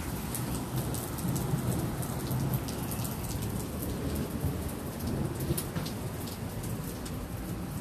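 Steady rain falling, with many sharp ticks of drops hitting close surfaces. A low rumble runs underneath, strongest over the first few seconds.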